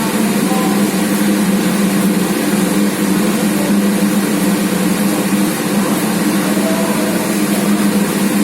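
Donut-cutting machine's motor running with a steady hum.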